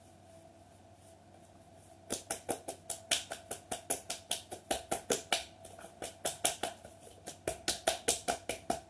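Hands tapping rapidly on the body in Tibetan Nejang self-massage: quick, sharp pats at about five a second, starting about two seconds in.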